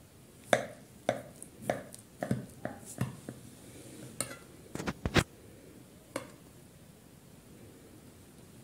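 Table knife cutting through a soft cake and knocking and scraping against the ceramic plate beneath it: about a dozen sharp taps and clicks over the first five seconds, the loudest near the start and around five seconds, then one last tap.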